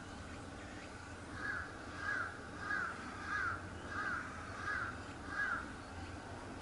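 A bird calling seven times in an even series, about one short call every two-thirds of a second, over a steady low background hum.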